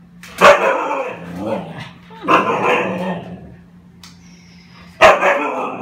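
Siberian husky 'talking': three loud, drawn-out vocal calls, each starting abruptly and lasting about a second, spaced roughly two to three seconds apart.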